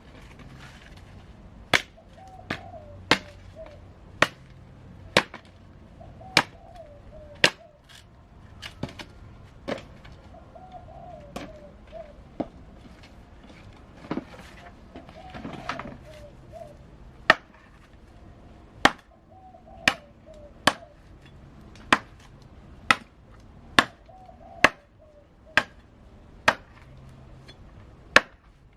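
Repeated chopping: sharp single blows about once a second, with a faint wavering bird call now and then between them.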